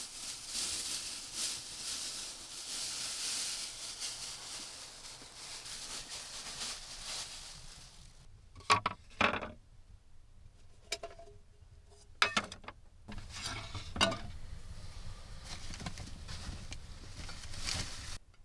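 A steady hiss for about the first eight seconds, then a series of sharp clinks and knocks of cookware and utensils, a few with a short ringing tone.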